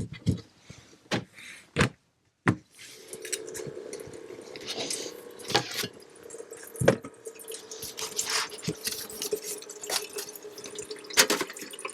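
Water running into a container with a steady tone from about three seconds in, among knocks and clinks of camp cookware being handled.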